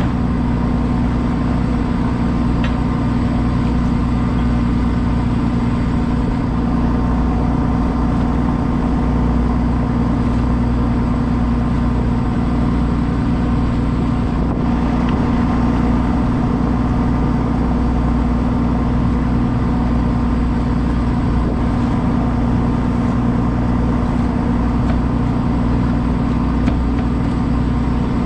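An engine running steadily at constant speed, an even low drone with no revving.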